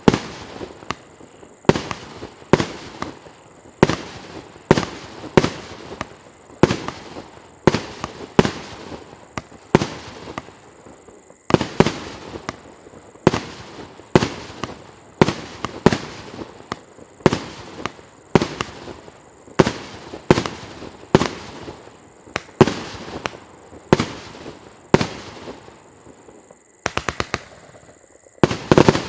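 Multi-shot consumer fireworks battery (Pyroff 'Legends of the East') firing: a steady run of sharp bangs, about one a second, each with a short crackling tail. Near the end comes a quick rattle of small pops.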